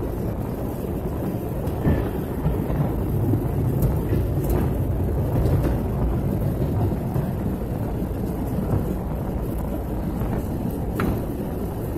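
Steady low rumble of an airliner's engines and rushing air, heard from inside the passenger cabin during the descent, with a few faint clicks.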